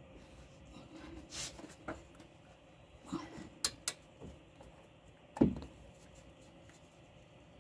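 Metal hand tools clicking and clinking on the sway bar end link and its nuts during tightening: a handful of scattered short clicks, then one sharp, much louder click about five and a half seconds in.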